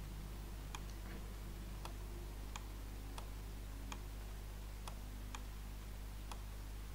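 Computer mouse buttons clicking as handwriting is drawn stroke by stroke: sharp single clicks at uneven intervals, roughly one a second, over a steady low electrical hum.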